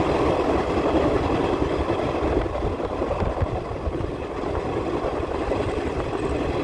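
Express passenger train under way: the steady, even rumble of the moving train.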